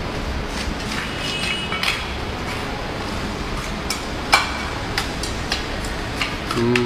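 Dishes and cooking utensils clinking and knocking now and then over a steady background noise, the sharpest clink about four seconds in.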